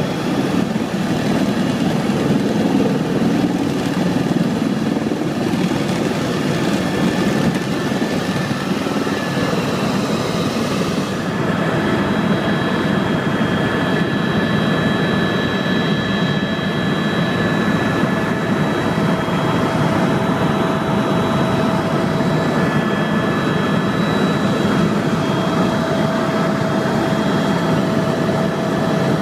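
Helicopter's turbine engine and rotor running steadily in flight, a dense drone with thin steady whines above it. About a third of the way in the high hiss drops and the whine tones shift.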